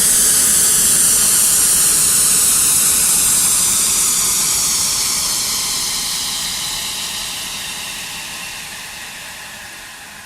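Steady hissing noise with a slow, falling whoosh sweeping down through it, fading out gradually.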